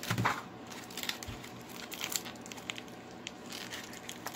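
Clear plastic packaging crinkling and crackling in the hands as an action figure is worked out of its bag, louder right at the start, with a soft low bump about a second in.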